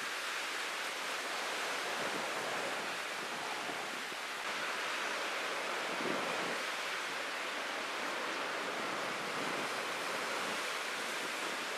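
Steady rushing noise of wind and choppy sea, with no distinct events, swelling slightly about six seconds in.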